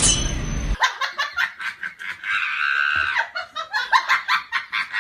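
A person laughing hard in quick repeated bursts. It follows a music track that cuts off suddenly under a second in.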